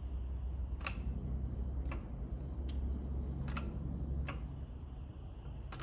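About six sharp, irregularly spaced clicks, roughly one every second, over a steady low hum.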